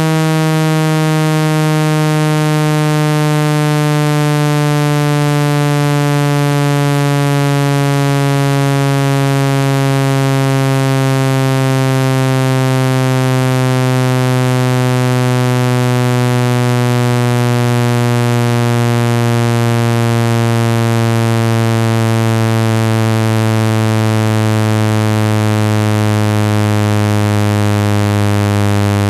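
Speaker-cleaning tone: one loud, steady, low electronic tone that glides slowly lower in pitch. It is played to shake water and dust out of a phone or laptop speaker.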